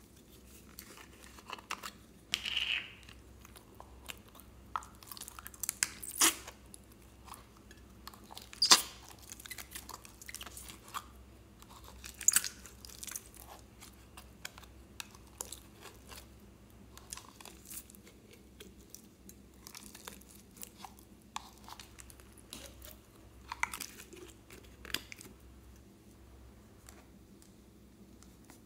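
Green store-bought slime squeezed out of a plastic jar into a glass bowl: scattered crunches and crackles, with a few sharp clicks.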